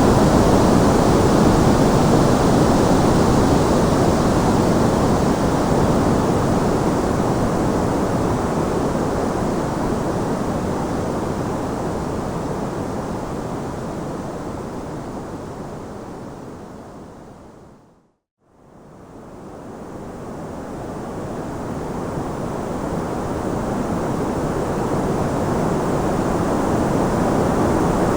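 Steady white noise for tinnitus masking: an even rushing hiss, fuller in the low and middle range than in the highs. It fades slowly away to silence about eighteen seconds in, then swells gradually back up.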